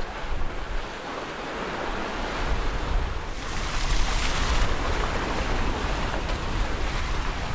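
Sea water rushing and splashing along the hulls of a 50-foot sailing catamaran under way, with wind on the microphone. A louder surge of spray comes about three and a half seconds in.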